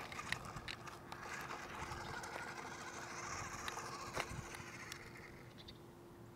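Toy RC car's small electric motor and gears running, with its wheels on rough concrete. It swells about halfway through and fades near the end, with a few scattered ticks.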